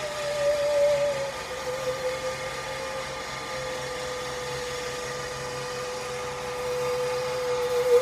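Singing saw (musical saw) note sliding down to a lower pitch in the first second and a half, then held long and steady, wavering again at the very end. Under it runs a steady low mechanical drone from construction machinery.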